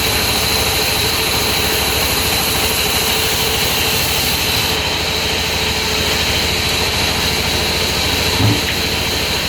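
Sawmill machinery running steadily: a continuous engine-like drone with a constant high whine. A brief thump comes near the end.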